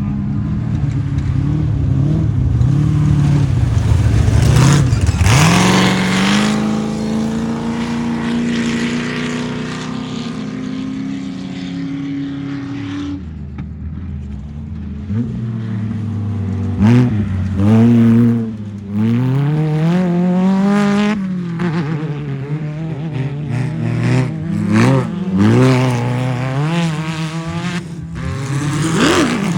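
Off-road race car engines running hard and passing by, with a pitch drop about five seconds in as one goes past. From about 16 seconds on, the engine revs rise and fall repeatedly with the throttle.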